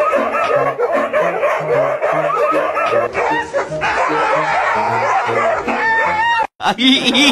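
A pack of huskies and golden retrievers barking and yowling together, many voices overlapping, over background music with a steady bass line. It cuts off abruptly near the end, and a different wavering sound begins.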